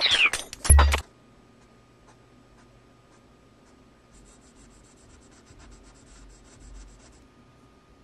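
A brief loud swoosh falling in pitch and ending in a low thump. Then Prismacolor colored pencil scratching on textured watercolor paper, laying down quick hatching strokes, several a second, from about four seconds in to about seven.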